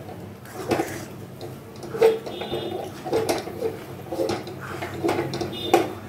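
Steel spoon scraping and knocking against a steel kadhai as it stirs thick, stiffening semolina dough, about two strokes a second, a few with a brief metallic ring.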